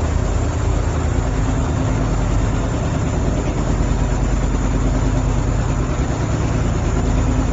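Boat engine running steadily with a low, even hum, under a constant rushing noise of water and wind.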